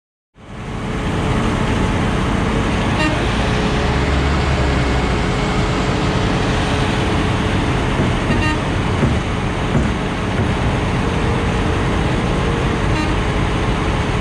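Heavy road-paving machinery running steadily at an asphalt paving site: a dense diesel engine rumble with a constant hum, cutting in abruptly about half a second in.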